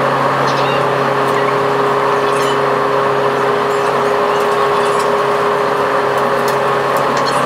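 Steady machinery drone of the car ferry Tokiwa Maru under way, heard on its open deck: a constant low hum with several held tones over a noisy rush, with faint brief high chirps now and then.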